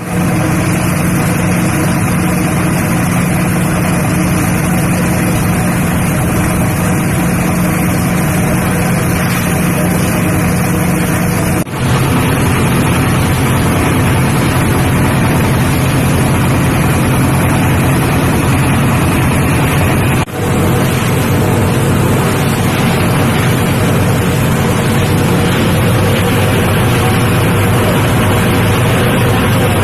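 Plastic shredder machine driven by a single-cylinder 'dompeng' diesel engine, running with a loud, steady drone. The engine note drops lower about twelve seconds in, with a brief dip in sound there and again around twenty seconds.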